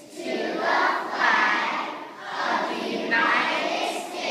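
A group of young children singing together, in phrases with a short break about two seconds in.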